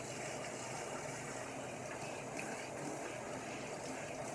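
Handheld shower sprayer running a steady stream of water into a dog's thick wet double coat in a bathtub, rinsing out the shampoo.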